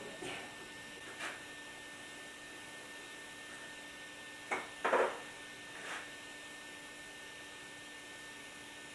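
A steady low hum with a higher steady tone over it, broken by a few short knocks: one near the start, one about a second in, a close pair about four and a half and five seconds in (the loudest), and a last one about six seconds in.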